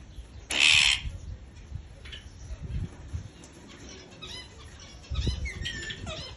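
Parrot calls: one loud, harsh half-second burst about half a second in, then soft chirps and short curving whistles in the second half.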